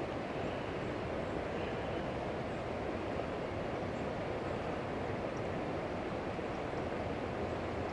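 Steady, even rush of river water flowing below a dam spillway.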